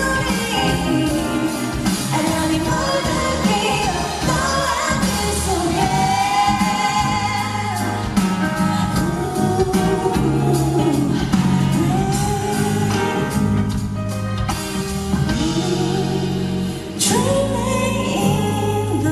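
A woman singing a pop song live into a handheld microphone over amplified backing music with a steady bass line; the music dips briefly near the end before coming back in.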